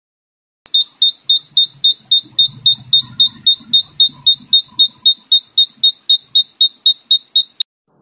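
Intermittent buzzer of a home-made thermistor fire alarm beeping with a high, sharp tone about four times a second, then cutting off suddenly near the end. It has been set off by a soldering iron heating the NTC thermistor, whose resistance drops with heat and completes the circuit.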